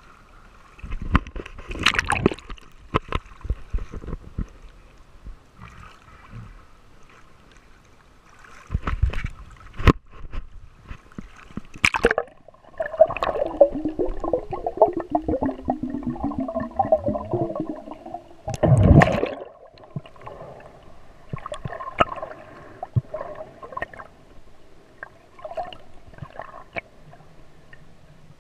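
Seawater gurgling and sloshing around a GoPro camera's waterproof housing during snorkeling, with several sudden knocks and splashes and a stretch of wavering, bubbling sound about halfway through.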